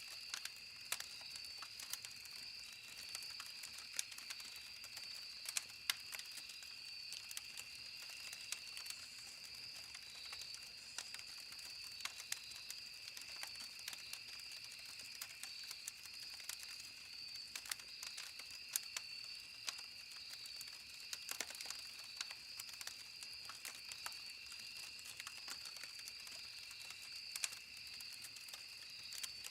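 Campfire crackling, with irregular sharp pops and snaps of wood burning. Behind it runs a steady high-pitched whine in two pitches.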